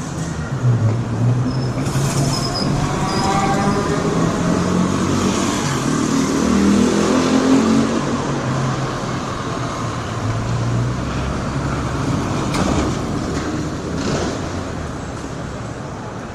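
City street traffic: a steady wash of road noise with the engines of passing cars and heavier vehicles. One engine rises in pitch a couple of seconds in.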